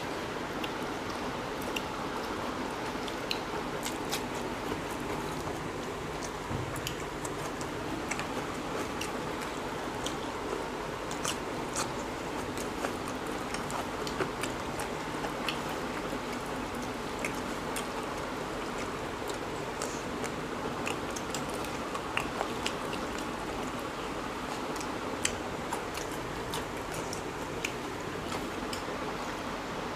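Close-miked eating by hand: chewing with many small, scattered clicks and crunches of rice and curry, over steady background noise.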